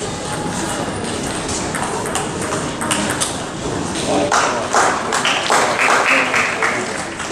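Table tennis ball clicking off bats and table in a fast rally. About four seconds in the point ends, and louder voices shouting and cheering follow.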